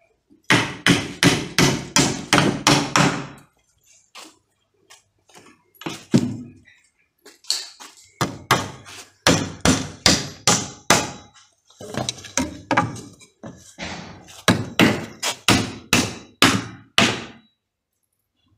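Claw hammer nailing timber battens for concrete formwork. It strikes in several quick runs of blows, about three a second, with short pauses and a few lighter single taps between the runs.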